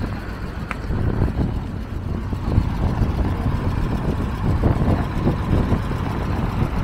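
Steady low engine rumble of motor traffic, with irregular low buffeting throughout.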